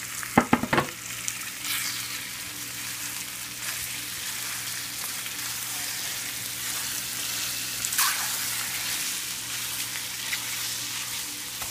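Cut red-cap boletus mushrooms and onion sizzling as they fry in a stainless steel frying pan, stirred with a wooden spatula. A quick run of sharp knocks comes near the start, and a low steady hum runs underneath.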